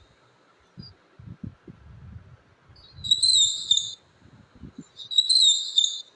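Monkey giving two high, wavering calls, each about a second long, the first about three seconds in and the second about five seconds in, with low knocks and rustling between them.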